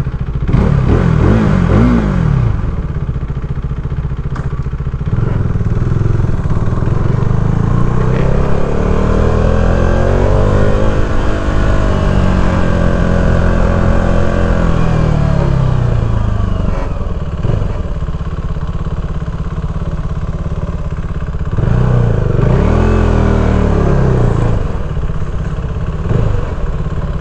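KTM RC 390's single-cylinder engine running under way, revving up and easing off. The pitch climbs from about eight seconds in and falls back between about fourteen and sixteen seconds, with another short rise and fall a little past twenty-two seconds.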